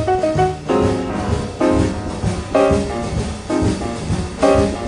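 Background instrumental jazz music, with chords struck about once a second.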